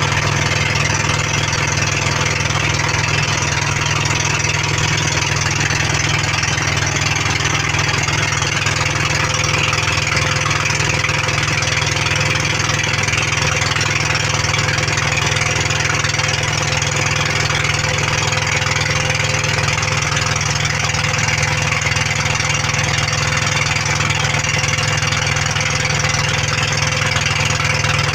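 Pump boat engine running loud and steady, with no change in speed.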